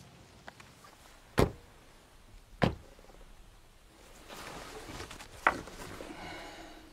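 Three sharp knocks or thuds: two about a second apart, and a third a few seconds later, over faint background noise.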